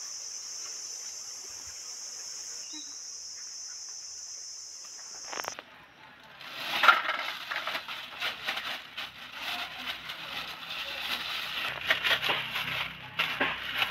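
Steady high chirring of crickets, cutting off suddenly about five seconds in. Then irregular rustling, slapping and clicking as a heap of small raw freshwater fish is tipped and spread onto a stainless steel plate.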